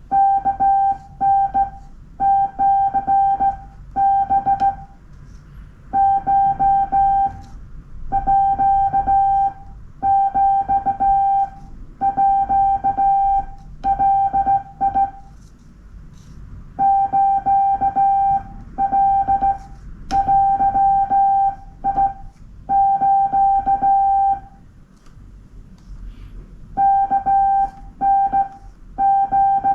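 Morse code sent by hand on a straight key: a steady mid-pitched beep keyed on and off in dots and dashes, grouped into characters and words with short pauses between the words.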